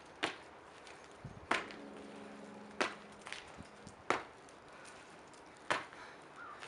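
Sneakers landing on asphalt with each donkey kick: five sharp slaps, a little over a second apart.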